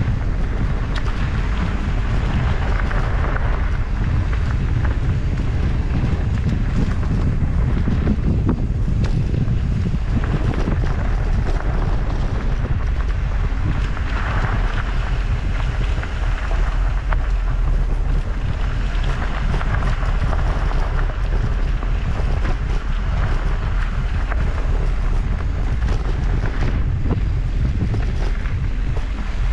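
Wind rumbling on the microphone of a mountain bike moving fast along a dirt singletrack, with the hiss and crunch of tyres on dirt that swells and fades and occasional small rattles from the bike.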